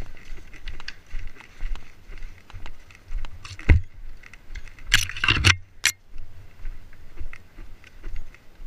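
Footsteps crunching on stony ground and gear rattling as an airsoft player runs, with a steady run of low thuds from the jostled camera. A few louder scraping noises come about four and five seconds in.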